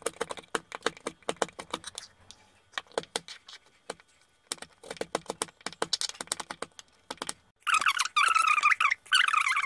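Serrated table knife chopping hard blocks of camphor on a wooden cutting board: quick, uneven runs of sharp knocks and crunches. About two seconds before the end, a loud, high-pitched wavering sound takes over.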